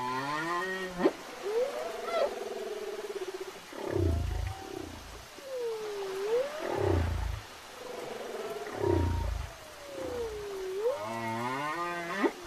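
Whale song: a sequence of pitched calls with rich overtones, some rising, some swooping down and back up, broken by low pulsing sounds about four, seven and nine seconds in. A downward-sliding call near the start comes back near the end.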